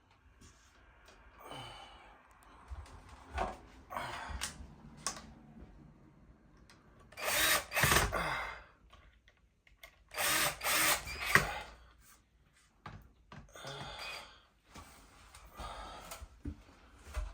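Power drill running in two short bursts of a second or two, among knocks and handling noises from installation work.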